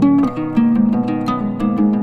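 Background music: a plucked string instrument playing a quick run of short notes over a sustained lower line.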